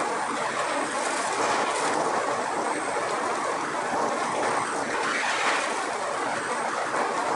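Kadıoğlu Nutmec 180E walnut peeling machine running with a load of green walnuts churning in its drum as the green hulls are stripped off. It makes a steady, dense rushing rattle.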